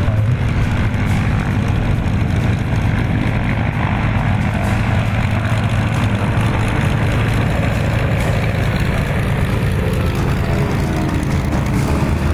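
Propeller aircraft taxiing at low power: North American Harvard trainers' nine-cylinder Pratt & Whitney R-1340 radial engines running with a steady, deep drone.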